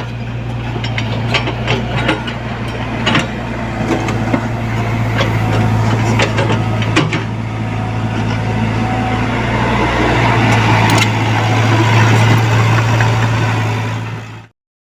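Mini excavator's diesel engine running steadily, with a string of metallic clanks and knocks in the first half. The sound cuts off suddenly near the end.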